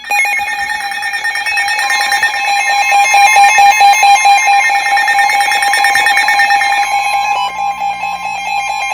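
Weather radio alert tone sounding before a severe thunderstorm warning: a loud, steady alarm tone held for several seconds, the signal that a warning message follows.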